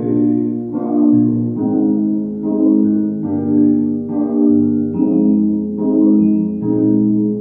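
Yamaha digital keyboard played with both hands: sustained chords struck about once a second over moving bass notes.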